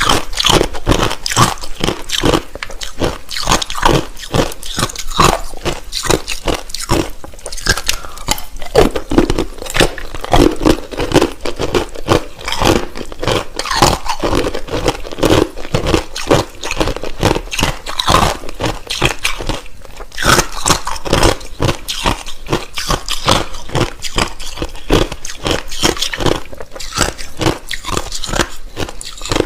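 Close-miked chewing of hard, clear crushed ice: fast, continuous crunching and cracking as pieces are bitten and ground between the teeth.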